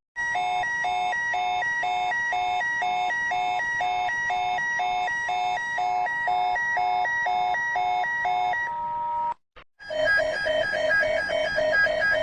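Digitally altered emergency alert alarm: a steady electronic tone under pitched beeps pulsing about twice a second. It cuts off for a moment near the end and starts again as a different variation, with beeps pulsing faster at other pitches.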